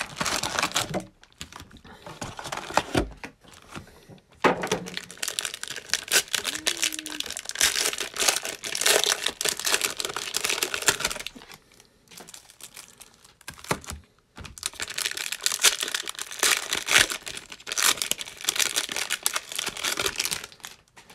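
Cellophane-wrapped Donruss Optic basketball cello packs crinkling as they are lifted out of the box and handled, in long stretches broken by brief pauses, the longest about twelve seconds in.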